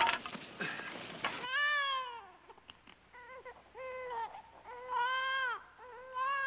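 A sharp crash right at the start, then a string of about five high, wavering cries, each under a second long, rising and falling in pitch.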